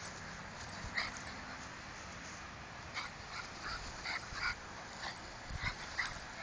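Rat terriers play-fighting, one giving a string of short, high-pitched yips and whimpers, several in quick succession around the middle.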